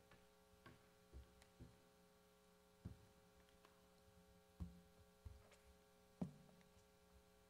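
Near silence: room tone with a steady electrical hum, broken by a few faint scattered knocks, the clearest about three, four and a half, and six seconds in.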